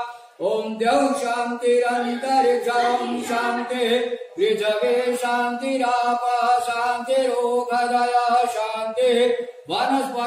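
Unaccompanied devotional chanting of puja verses in a steady sing-song melody, sung in long phrases with short breath pauses roughly every four to five seconds.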